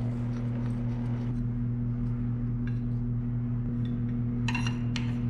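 Steady low hum, with a few light metallic clinks of wrenches on an oil cooler line fitting. The loudest clinks, with a short ring, come a little before the end.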